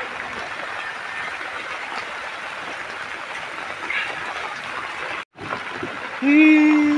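Heavy rain falling on a flooded street, a steady hiss of rain and water, broken by a short gap just after five seconds. Near the end a loud, flat vehicle horn honks for about a second, rising slightly in pitch as it stops.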